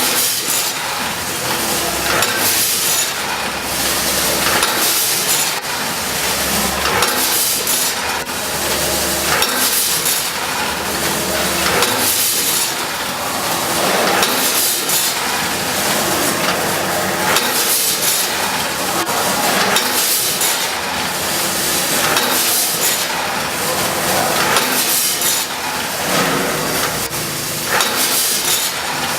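Vertical roll-film bag packaging machine running, a steady hum with a hissing, clattering stroke every couple of seconds as it cycles.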